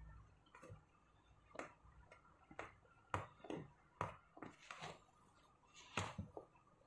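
Silicone spatula stirring thick flour batter in a plastic mixing bowl: faint, irregular taps and soft scrapes as the spatula knocks against the bowl, roughly one to two a second.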